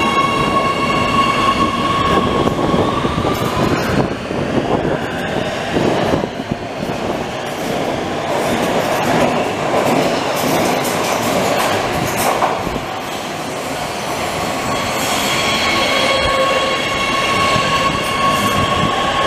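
Oslo Metro train moving off through an underground station. A high whine with several overtones rises in pitch as it picks up speed, then gives way to the rumble and clatter of the cars running past on the track. A steady high whine returns near the end.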